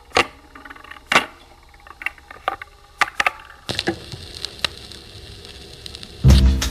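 Sharp, irregular clicks and cracks a few seconds apart, then a song with a heavy beat starts loudly near the end.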